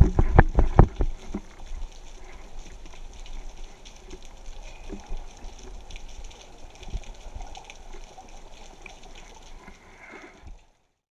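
Water sloshing and bubbling around an underwater camera at the surface, opening with a burst of loud knocks and thumps in the first second and a half, then a lower steady water noise with a few small knocks, cutting off near the end.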